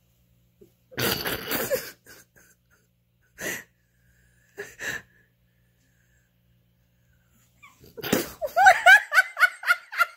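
A short wheezy, breathy burst about a second in and a couple of brief puffs after it. From about eight seconds in comes a loud run of quick, high-pitched laughter, several bursts a second, as the pug puppy in the jacket topples onto its back.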